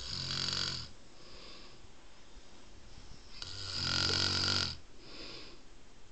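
Snoring: two loud buzzing snores on the in-breath, about three and a half seconds apart, the second one longer. Each is followed by a softer, hissing breath out.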